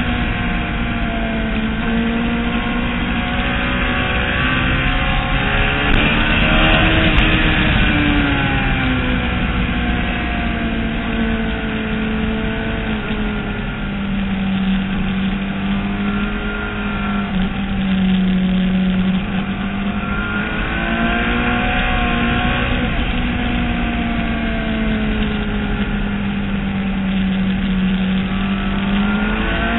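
Motorcycle engine heard from a camera mounted on the bike while lapping a race track, running hard with its pitch rising and falling several times as it accelerates and slows.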